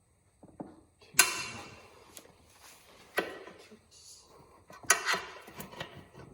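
Steel tire spoons clanking against a motorcycle wheel rim while a tire is pried off: several sharp metallic knocks a second or two apart, each with a short ring.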